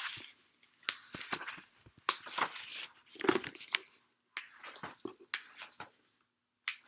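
Irregular rustling and scraping close to the microphone from a paperback book being opened and its pages leafed through and a cat moving right in front of the device, in short separate bursts with brief pauses.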